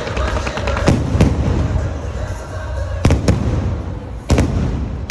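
Aerial firework shells bursting overhead: a series of loud, sharp bangs, several in close pairs, over a continuous crackling haze.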